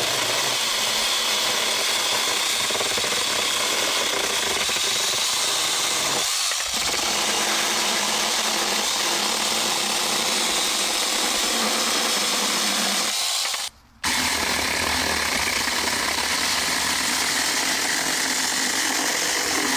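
Saker 6-inch cordless mini chainsaw running at full speed. It stops for a moment about 14 seconds in, then starts again.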